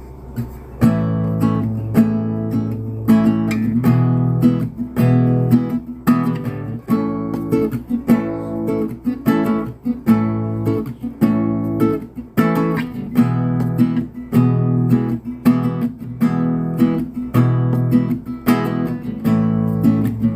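Acoustic guitar strumming chords in a steady rhythm, the instrumental introduction of a sertanejo song played as a karaoke backing track.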